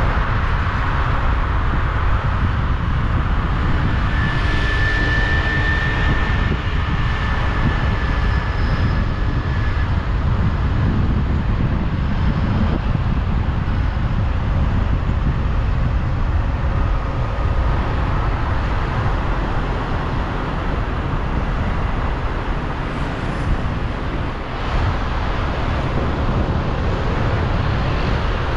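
Steady low rumble of vehicle noise, with a faint thin tone over it for a few seconds about four seconds in.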